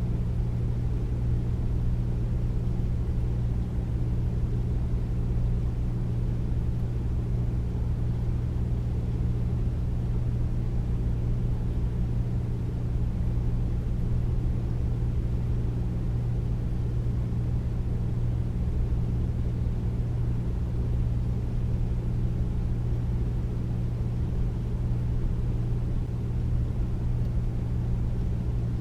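Air conditioner running steadily: a deep, even hum with a rushing noise, unchanging throughout.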